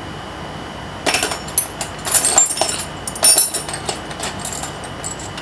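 Metal hand tools clinking and clattering as they are rummaged through, in irregular bursts starting about a second in.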